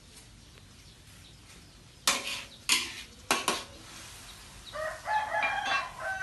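A metal spatula strikes an iron wok three times, about half a second apart, each clang ringing briefly. Near the end a rooster crows.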